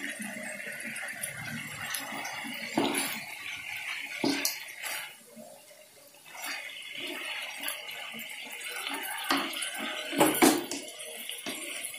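Rabbit meat sizzling as it is stir-fried in a non-stick wok, with a wooden spatula scraping and knocking against the pan several times. The loudest knocks come about ten seconds in, and the sizzle dips briefly around the middle.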